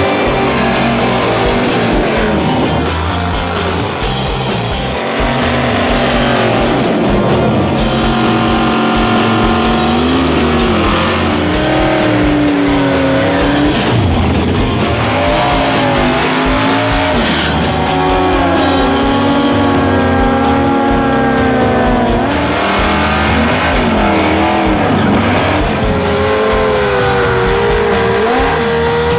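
Rock music with guitar playing over drag-race sound: race car and motorcycle engines running and tyres spinning in burnouts.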